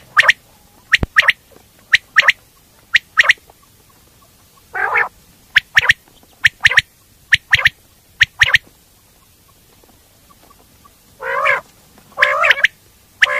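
Coturnix quail calling: short, sharp notes, often in quick pairs, repeated at irregular intervals. A few longer, wavering, lower calls come in about five seconds in and twice near the end.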